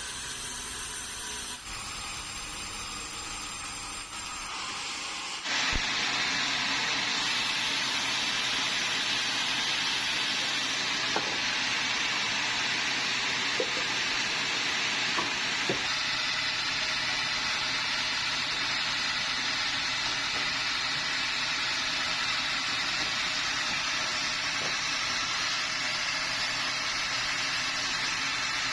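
Sawmill saw running and then cutting into a bengkirai hardwood log: a quieter spinning sound with a high whine, then about five seconds in a jump to a steady, loud, hissing cutting noise that holds.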